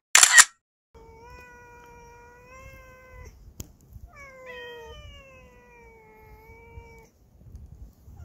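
Two cats meowing to each other in long, drawn-out meows of two seconds or more, some sliding down in pitch, two of them overlapping about halfway through. A short, loud rush of noise right at the start.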